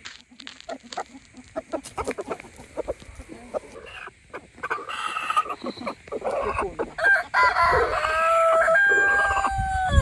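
Chickens clucking, with scattered rustling clicks in the first few seconds, then a long drawn-out crow in the last three seconds.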